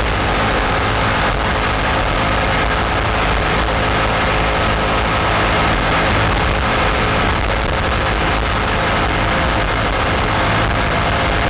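Race jet boat's engine running steadily under power while the boat is underway, heard from on board, with a steady rushing hiss over it.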